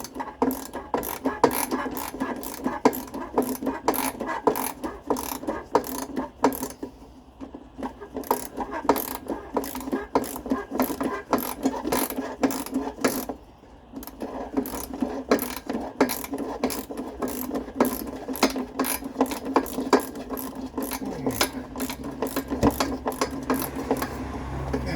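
Ratchet spanner clicking in a steady run as a tight exhaust bolt is worked loose, with a short pause about halfway through.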